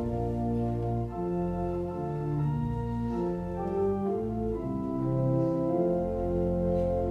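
Organ playing a hymn tune in full held chords over a bass line, the chords changing about once a second. It is the introduction before the hymn is sung.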